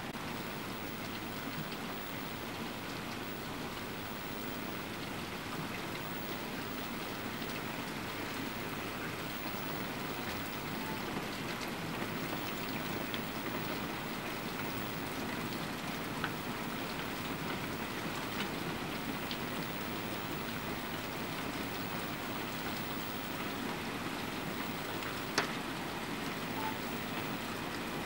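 Heavy hail falling steadily, a dense continuous patter of small impacts, with a few sharper single ticks standing out above it, the loudest near the end.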